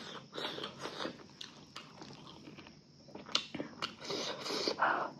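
A person chewing and biting food close to the microphone, with irregular small clicks and crunches.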